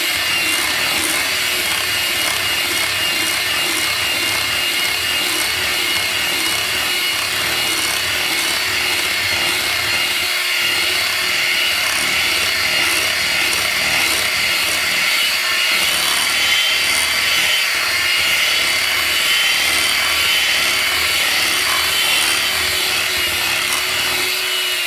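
Proctor-Silex electric hand mixer running steadily at speed, its beaters churning thick brownie batter in a glass bowl, with a steady high whine from the motor.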